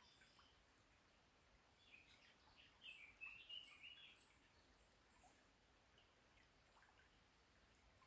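Small songbirds singing faintly: a burst of quick warbling chirps about two to four seconds in, with a row of high, thin calls alongside, over a steady faint hiss.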